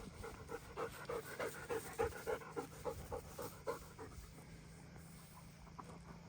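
German Shepherd dog panting rapidly, about three breaths a second, easing off after about four seconds.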